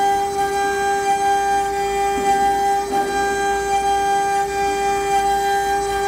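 Water-cooled 2.2 kW spindle of a CNC router whining steadily at one high pitch while its bit cuts into a wooden board, with a faint hiss of cutting underneath.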